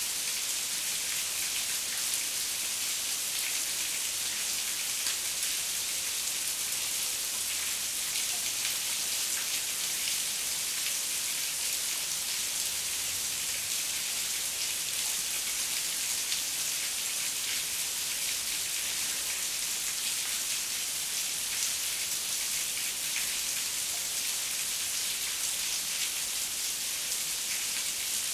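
Heavy rain falling steadily: a dense, even hiss of countless drops striking a surface, with no thunder.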